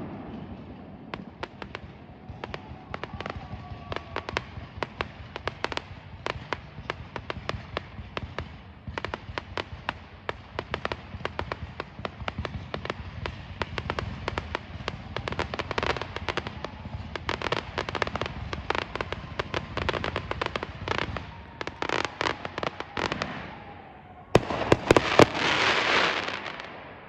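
Fireworks going off over a neighbourhood: a near-continuous run of bangs, pops and crackles. A louder, denser volley comes near the end.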